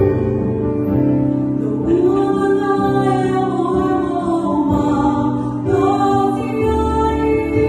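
Samoan youth choir of young men and women singing in harmony, holding long chords that change together every second or so over a low bass part.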